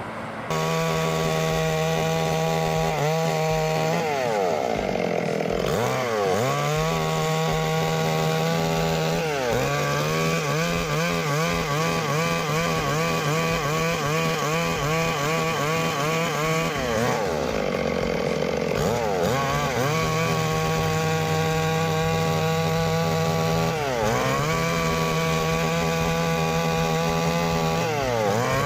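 Chainsaw running at high revs and cutting into wood, its engine note sagging and recovering several times as the chain loads in the cut. It starts about half a second in.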